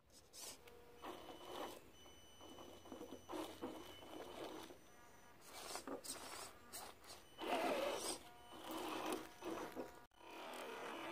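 Electric motor and gears of an Axial SCX10 RC rock crawler whining in irregular spurts as it climbs a steep dirt bank, with the tyres scrabbling on loose soil, loudest near the end.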